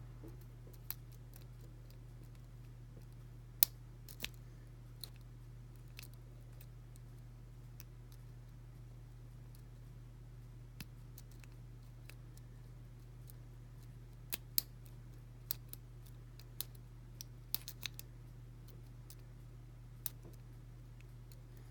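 Scattered small metallic clicks and ticks of a lock pick working the pins of a five-pin Ace closed-shackle padlock under heavy tension, irregular and bunched more closely near the end, over a steady low hum.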